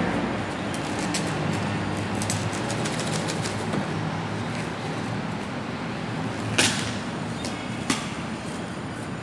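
Bubble wrap around a boxed figure rustling and crinkling as hands grip and turn it, with two sharper crackles about two-thirds of the way through, over a steady background rumble.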